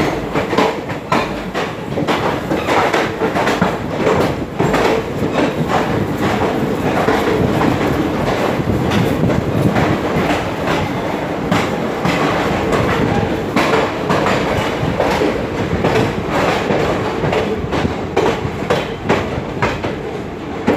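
Railway train running along the track, its wheels clattering over the rail joints in a continuous stream of knocks.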